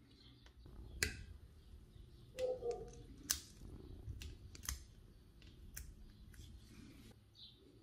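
Scattered sharp clicks and taps of small hard objects, about a dozen over several seconds, with a short knock near the middle.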